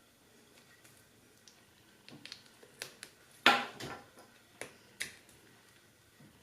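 Small plastic parts of a Sony AS300 action camera's lens module clicking and ticking as they are pried apart by force, with one louder crackling snap lasting about half a second midway.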